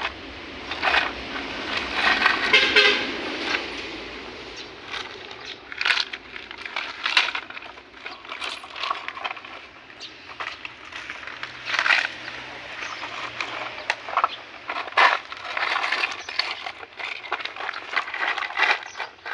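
Plastic toy cars and trucks being handled and knocked together: irregular clicks and clatter throughout, with a toy horn tooting about two to three seconds in.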